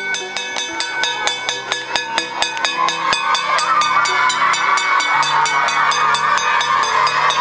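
Hand-held metal gong plate, a school bell, struck rapidly with a stick: an even run of ringing clangs about five a second, the continuous ringing that lets school out. A noisy wash grows under the ringing from about three seconds in.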